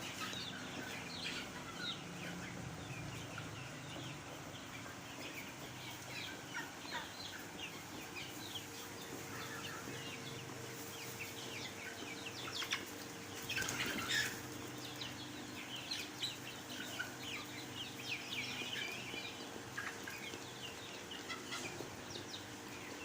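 A flock of farm chicks peeping and clucking, many short high chirps overlapping continuously, with a faint steady hum underneath from about a third of the way in.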